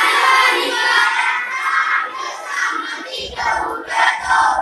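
A class of schoolchildren singing a line of a Marathi poem together in chorus, repeating it after the teacher.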